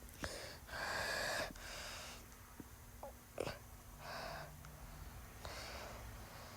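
Faint breathing close to the microphone, a few soft breathy puffs with small clicks between them.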